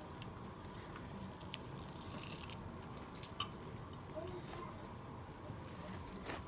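Faint room noise with scattered small clicks and rustles, like a phone being handled and moved about.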